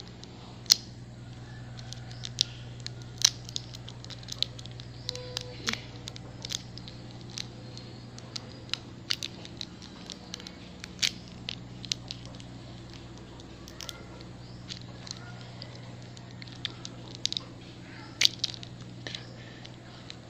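A person eating a snack close to the microphone, handling its plastic wrapper: irregular sharp clicks, crinkles and mouth smacks over a steady low hum.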